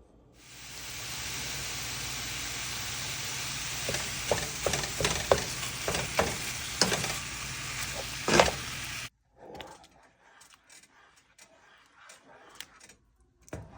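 Steady sizzling hiss of food frying, with a run of sharp clicks and taps from stirring about halfway through. It cuts off suddenly about nine seconds in, leaving only a few faint clicks.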